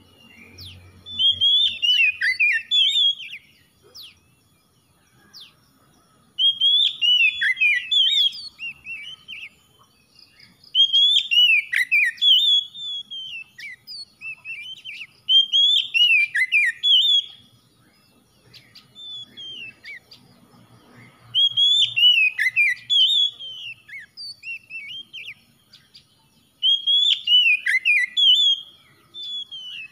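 Oriental magpie-robin singing: six loud, rich whistled phrases of about two seconds each, one every four to five seconds, with softer scattered notes between them.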